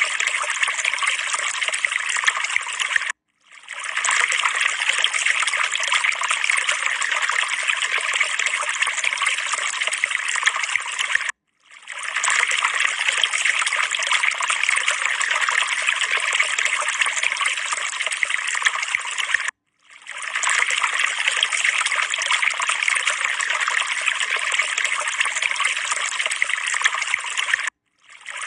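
Steady trickling water sound, a looped background track that cuts out for a moment about every eight seconds and fades back in.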